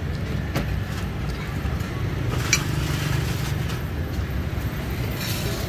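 Steady low rumble of road traffic, with a couple of sharp clicks and a short clatter near the end.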